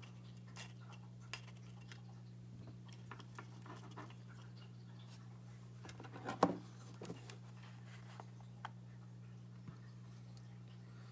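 Faint small clicks and handling noise as fingers press the buttons of the Caddx Turtle V2's menu board, over a steady low hum. A louder knock comes about six and a half seconds in.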